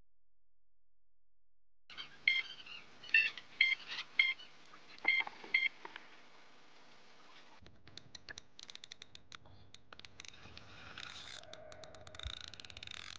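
Electronic carp bite alarm giving an irregular run of about seven short, high beeps as line is pulled off the rod. After this comes quieter background noise with a quick run of light clicks.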